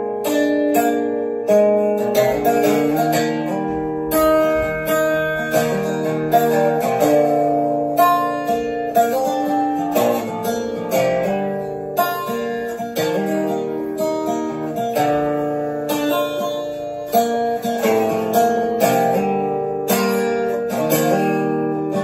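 Acoustic guitar picking and strumming an instrumental break in a country song, with no singing.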